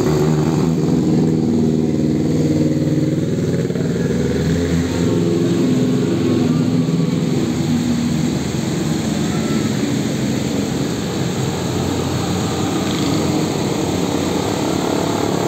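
Motorcycle traffic on a wet road. A motorcycle engine is loudest for the first four to five seconds, over a steady hiss of tyres on water and falling rain.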